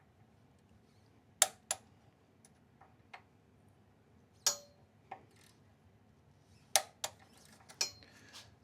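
A torque wrench and hand tools on a motorcycle's front axle clamp bolts: about eight sharp metallic clicks spread out, some in quick pairs, as the bolts are tightened to 10 newton meters.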